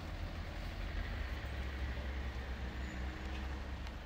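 Town-street ambience: a steady low rumble of traffic.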